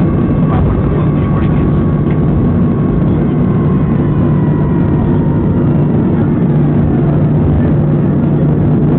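Boeing 737-300's CFM56 jet engines running as a loud, steady rumble. A thin whine rides on top and slides slowly down in pitch over the first several seconds.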